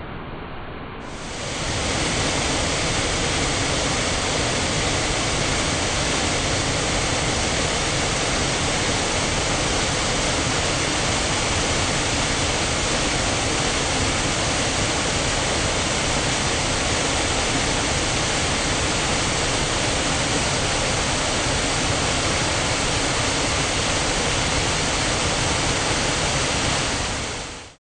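River water pouring over a weir's spillways, a steady rushing noise that becomes louder about a second in and stops abruptly at the end.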